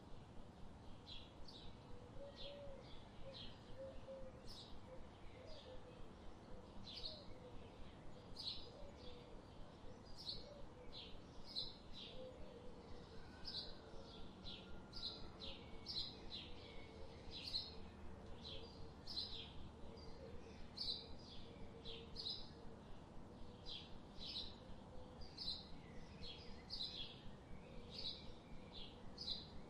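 Forest birds chirping: short high notes repeating about twice a second, over a faint steady background hiss.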